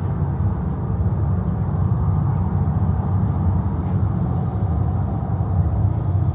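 Boeing 737-800 airliner taxiing, its CFM56 jet engines at low taxi power heard as a steady low rumble.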